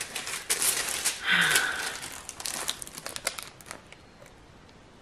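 Plastic-covered diamond painting canvas being handled, rustling and crinkling with sharp little crackles, with a brief higher tone about a second and a half in; the handling dies away after about four seconds.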